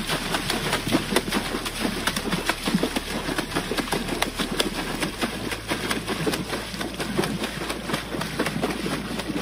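Water splashing hard and continuously as a dog thrashes in a river, a rapid run of slaps against the surface.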